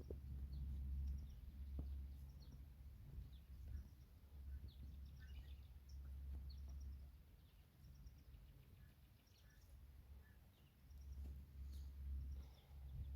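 Faint, scattered chirps and short calls of several songbirds over a steady low rumble.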